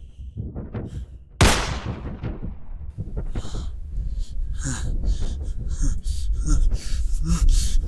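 A single loud, sudden hit about a second and a half in, with a fading tail. Then a man breathes hard in quick, ragged gasps and grunts.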